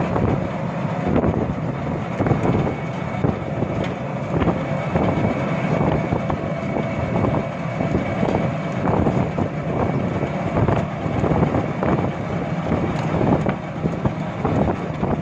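Riding inside a moving auto-rickshaw: the vehicle's steady road noise with frequent rattles and knocks from the body over the road, and wind buffeting the microphone.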